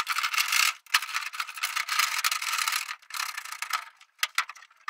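Steel plate and bracket scraping and rattling against each other as they are worked into place by hand, in a run of short, irregular scrapes with a few brief pauses.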